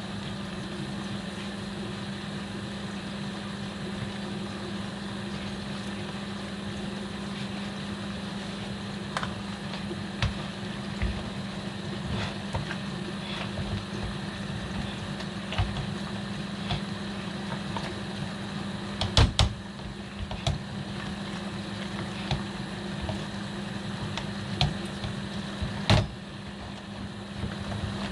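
Potato masher working boiled potatoes in a steel pot: irregular knocks and clicks of the masher against the pot, starting about a third of the way in and loudest a few times in the last third, over a steady low hum.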